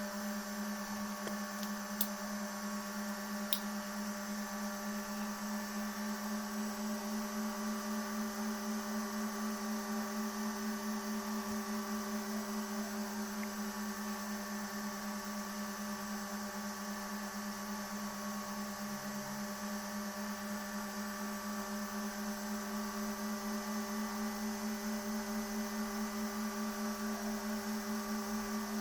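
Homemade 3D printer running with a steady, even hum that pulses slightly and regularly. Two short clicks come a second and a half apart near the start.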